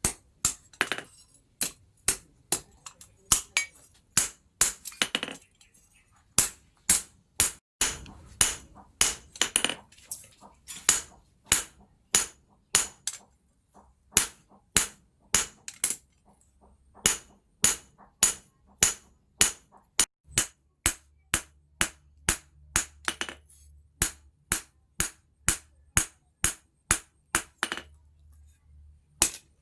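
Hand hammer striking steel on an anvil in a steady rhythm of about two ringing blows a second, with a couple of brief pauses, as a knife blade is forged. A faint low hum joins in the second half.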